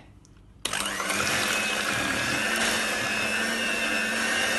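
Electric hand mixer switching on about half a second in, winding up to speed and then running steadily, its beaters whipping a thick cooked custard cream.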